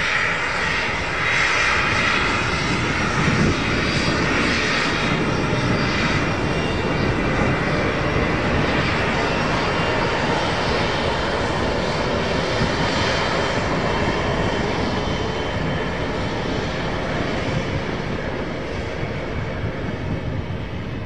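Twin-turbofan business jet's engines running steadily as it taxis, a continuous jet hiss and rumble that eases off slightly near the end as the jet moves away.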